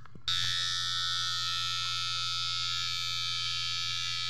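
Electric hair clipper buzzing steadily as it cuts hair, with a high whine over a low hum; the buzz sets in suddenly about a third of a second in.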